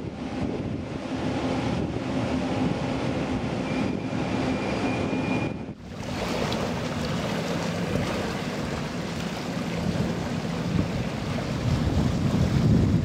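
Wind rushing over the microphone and waves splashing, over a steady low engine hum. The sound drops out briefly about six seconds in, then carries on.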